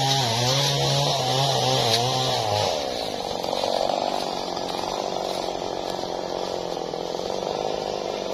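A man's voice holding a long, wavering call or sung note for about the first three seconds, over a steady motor drone. The drone carries on alone after the voice stops.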